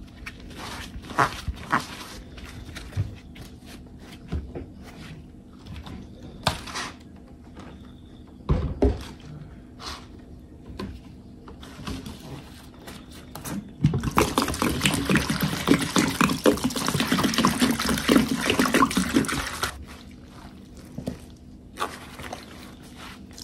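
Wet sponge full of detergent being squeezed: scattered squelches and crackles, then a dense stretch of wet squishing and foamy crackle for about five seconds a little past halfway, easing back to a few squelches near the end.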